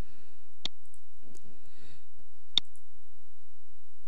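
Two sharp computer mouse clicks, about two seconds apart.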